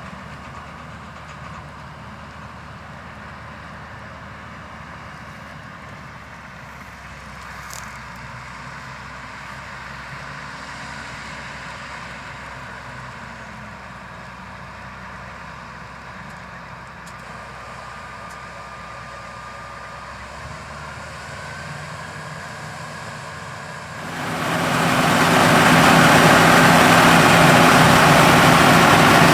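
Diesel engine of heavy harvest machinery running steadily at a distance, with slight rises and falls in pitch. About 24 seconds in, it becomes suddenly much louder and fuller, a large machine running close by.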